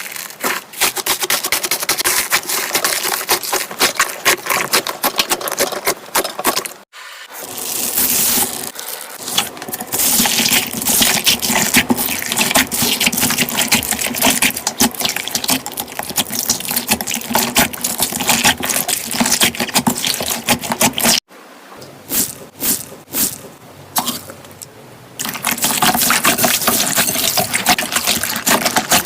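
Slime being squeezed and kneaded by hand: dense, wet clicking and popping that breaks off abruptly twice and is quieter and sparser for a few seconds after the second break.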